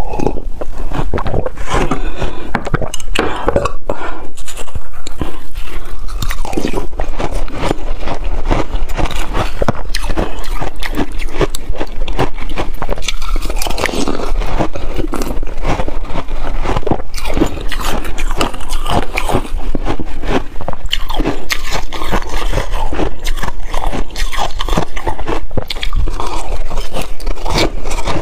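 Close-miked crunching and chewing of shaved ice, eaten by the spoonful.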